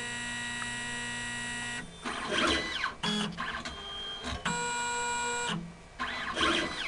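Motors of an automated pipetting robot whining as its arm moves and dispenses water into a test tube. The tones are steady and stop and start, with short rising and falling sweeps in between.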